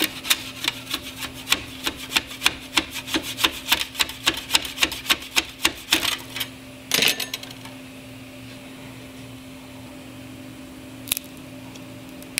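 A metal spatula scraping a freshly printed plastic part and its raft off a 3D printer's build platform in quick repeated strokes, about four a second, then one longer scrape about seven seconds in. A steady hum runs underneath, and there is a single click near the end.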